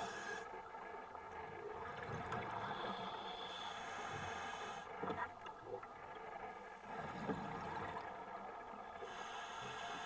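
Underwater recording of a scuba diver's regulator breathing: a high hiss that comes and goes every three to four seconds, with gurgling and a few faint knocks between.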